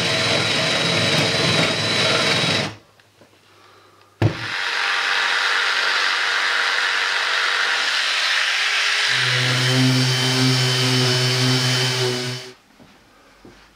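Cordless drill boring through thin plywood, stopping about three seconds in. After a sharp click, another hand-held power tool runs on the plywood panel for about eight seconds, with a steady low hum joining in the last few seconds; by then a random orbital sander is working the panel.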